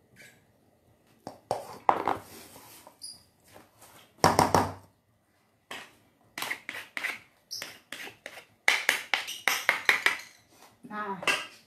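Wooden spatula scraping and stirring a thick mix of rice, minced meat and cabbage in a large bowl, with a small bowl knocking against it as portions are scooped; an irregular run of scrapes and knocks, the loudest about four seconds in.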